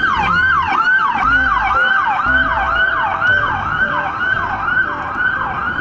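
Toy police car's electronic siren: a quick falling wail repeated about two and a half times a second at an even pace.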